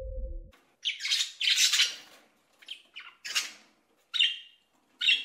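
Blue-and-yellow macaws squawking: a series of about six short, harsh calls, the first starting about a second in.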